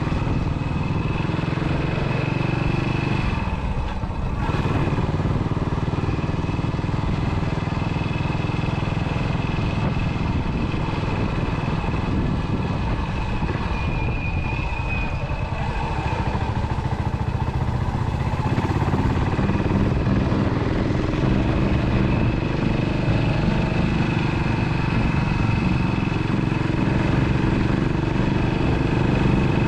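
Yamaha SR single-cylinder motorcycle engine running steadily while being ridden, a little louder from about two-thirds in.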